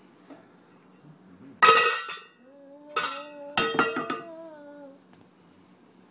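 Metal pots and pan lids banged together like cymbals: three loud clangs with ringing, the first the loudest, the next two a little over a second and then about half a second later. A drawn-out voice sounds under the last two.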